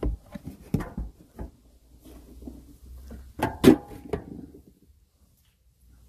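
Coffee grounds being tipped from a tub into a stainless steel washing machine barrel: a run of soft knocks and rustles, then a louder knock that rings briefly about three and a half seconds in.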